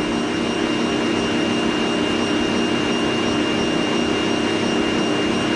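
Electric stand mixer running steadily at speed, its beater whipping cream in a stainless steel bowl until it thickens. A constant motor hum with a thin, steady high whine.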